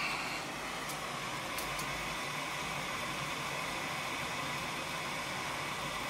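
Goodman 80% gas furnace running: a steady whir of its motors and rushing air with a constant hum, and a couple of faint clicks about a second in.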